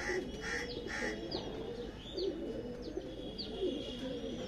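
Many domestic pigeons cooing together in a loft, a steady overlapping murmur of low wavering coos. Short, high, falling chirps come several times over the top.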